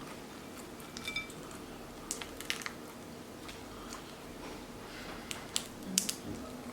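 Seafood shells being cracked and picked apart by hand while eating, with scattered sharp clicks and cracks and wet squishing; the loudest crack comes near the end. A steady low hum lies underneath.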